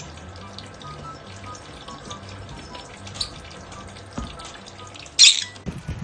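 Thin stream of water running from a small faucet onto a bathing small parrot, under light background music with short repeating notes. A brief loud burst of noise comes near the end.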